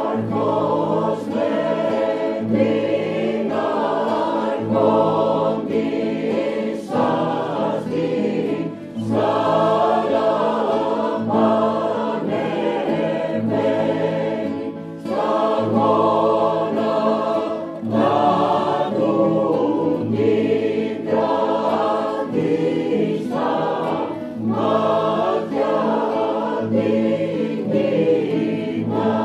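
A choir singing a Greek Christmas carol (kalanta) in phrases over sustained low notes.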